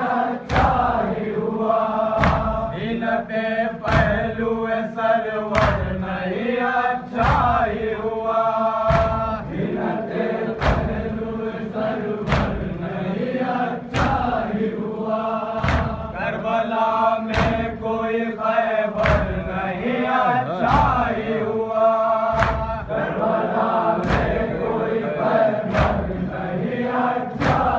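Male voices chanting an Urdu noha lament together, kept in time by sharp, regular beats: a heavy one about every second and a half, with lighter ones between.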